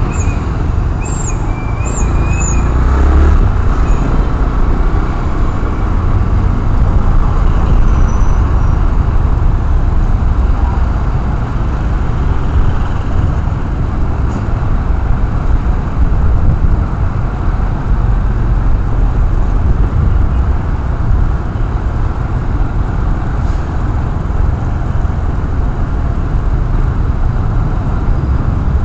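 Wind rushing over a helmet-mounted camera's microphone on a moving motorcycle, with engine and road-traffic noise underneath. There are a few short, faint high tones in the first three seconds.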